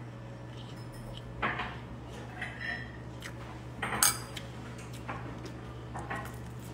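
Dishes and cutlery clinking and knocking against each other in a handful of separate short strikes, the loudest about four seconds in, over a steady low hum.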